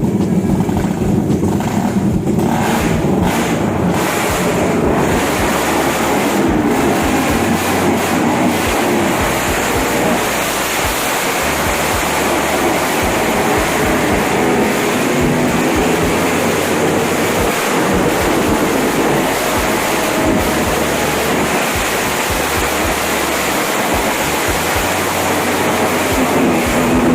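Motorcycle engines with loud aftermarket exhausts running, a steady dense noise with no clear revs standing out.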